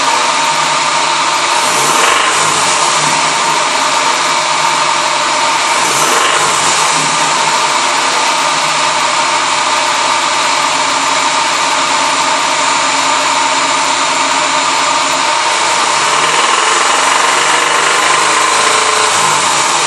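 Toyota 22RE 2.4-litre four-cylinder engine running with a minor rod knock, the sign of a worn connecting-rod bearing. It is blipped briefly about two and six seconds in, and its speed shifts near the end.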